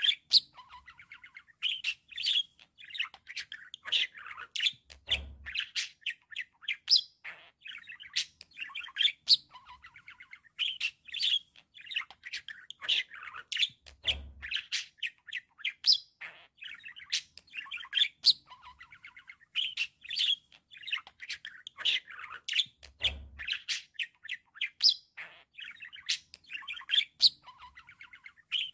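Budgerigars chattering and warbling: an unbroken run of quick chirps, clicks and squeaky notes.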